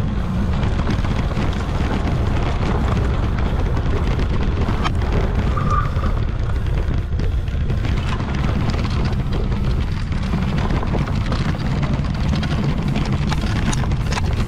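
Steady rumble of wind on an action camera's microphone and a bicycle rolling over a bumpy dirt forest trail, with background music under it.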